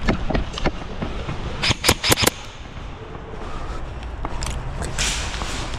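Quick thuds in the first second, then four sharp shots from an airsoft gun fired in quick succession about two seconds in. A short hiss follows near the end.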